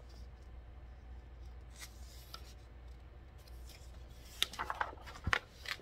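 Pages of a hardcover picture book being handled and turned: a few short paper rustles and clicks about four and a half seconds in, over a faint low hum.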